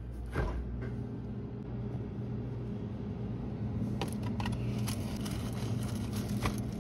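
Refrigerator-freezer humming steadily with its freezer door open, with a single click as the door is opened near the start. From about four seconds in, crinkling plastic film and cardboard as an ice-cream bar is pulled out of its box.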